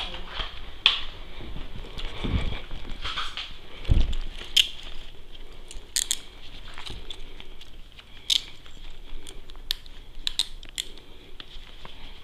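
Handcuffs being put on a person's wrists behind their back: scattered sharp metallic clicks amid clothing rustle and close handling noise on a body-worn camera, with two dull thumps in the first few seconds.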